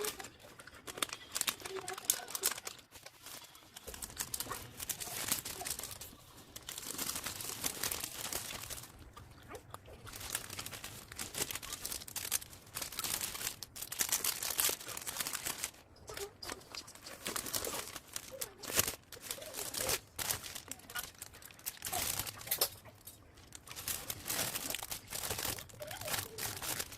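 Packing material crinkling and rustling in irregular bursts as it is handled and folded around the contents of a box.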